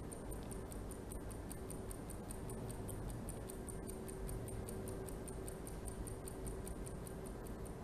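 Clock-ticking sound effect of a quiz countdown timer: rapid, even ticks, about four to five a second.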